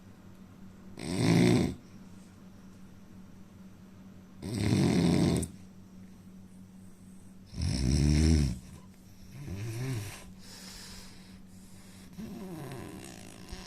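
A man snoring in his sleep: three loud snores about three seconds apart, then softer snores whose pitch rises and falls. A faint steady hum runs underneath.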